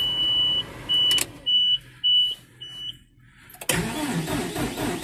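The tractor's dashboard warning beeper sounds a steady high tone that breaks into four short beeps. About three and a half seconds in, the starter begins cranking the small three-cylinder turbo diesel, turning it over with an even rhythmic chug: a cold start with no block heater and dead glow plugs.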